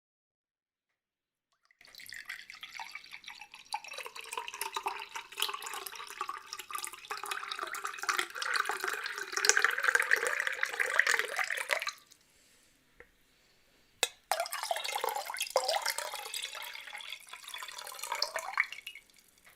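Water being poured into a glass, twice: a long pour of about ten seconds, a short pause with a single click, then a second pour of about five seconds.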